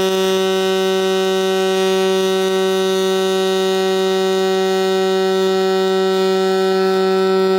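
Pulse-spray MIG (GMAW) welding arc laying a fillet weld on quarter-inch steel, giving a steady, even hum like a bumblebee. That humming sound, rather than crackling, marks a true pulse spray transfer with virtually no spatter.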